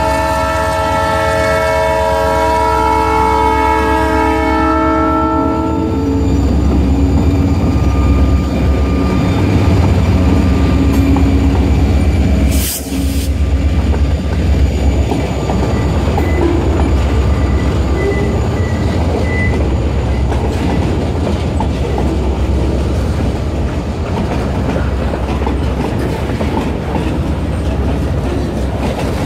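Diesel-electric EMD SD40-2 locomotives sounding their horn in one sustained blast that stops about six seconds in. After that comes the heavy rumble and clickety-clack of the freight train's cars rolling past over the crossing.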